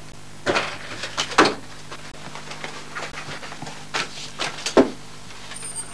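Sheets of paper rustling and a few light knocks on a tabletop as papers are handled and written on, over a steady low hum.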